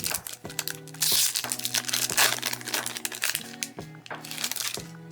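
Foil wrapper of a Pokémon booster pack crinkling and tearing open in several bursts, over background music.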